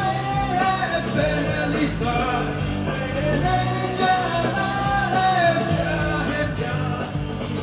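A man singing a Hindi song into a handheld microphone over a karaoke backing track, his voice and the band track amplified together.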